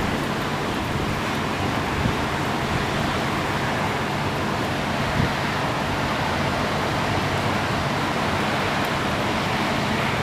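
Steady rush of storm wind and ocean surf from a passing hurricane, with wind buffeting the microphone and a couple of faint knocks.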